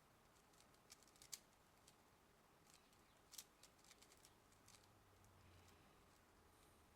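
Faint clicking of a Rubik's Cube's layers being turned fast during a speed solve, in quick flurries about a second in and again from about three seconds in.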